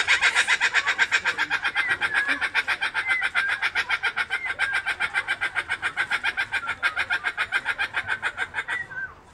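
Laughing kookaburra calling: a long, even run of rapid notes, about eight a second, easing slightly in loudness and stopping abruptly about nine seconds in.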